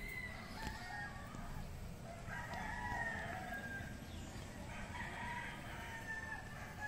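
Roosters crowing, several crows one after another over a low steady rumble.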